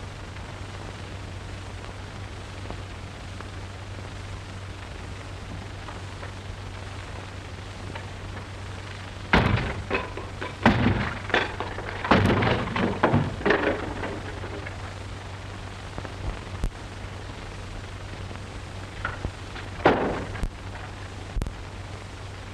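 Bursts of thumps and clattering knocks, several in quick succession from about nine seconds in for some five seconds, and one more knock near the end. Under them runs the steady hiss and low hum of an old film soundtrack.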